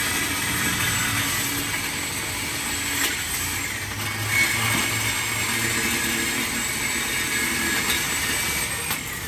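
Cordless power tool cutting through the steel exhaust pipe under a Dodge Charger Scat Pack: a steady metallic grinding, with a few brief knocks.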